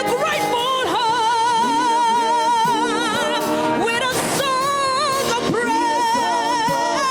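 Gospel worship music: a solo voice holds long, wavering notes with wide vibrato over steady instrumental backing.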